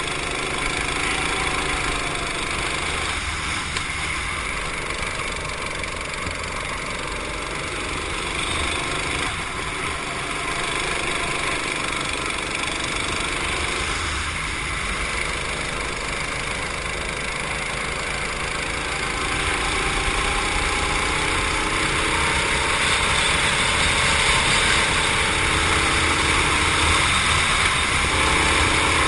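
Racing kart's engine running hard, heard onboard, its pitch dropping and climbing again several times as the kart lifts for corners and accelerates out, over a constant rush of wind and tyre noise. It gets a little louder in the later part.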